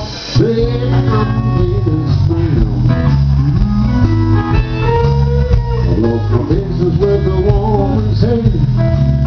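Live rock band playing an instrumental stretch: electric guitar lead with bending notes over electric bass and drums.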